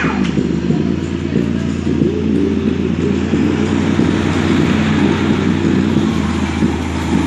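JBL Flip 4 Bluetooth speaker putting out a loud, dense, rumbling buzz over a steady low hum, with no clear tune or voice.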